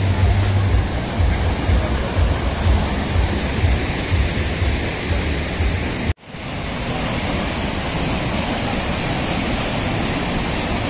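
Fast-flowing mountain river rushing over rocks in rapids: a steady, loud roar of water, with a brief sudden cut-out about six seconds in.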